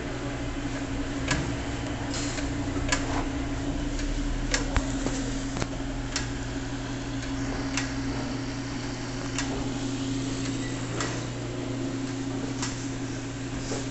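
Electric motor of a Gural cheese slicer running with a steady hum, with light clicks scattered every second or so.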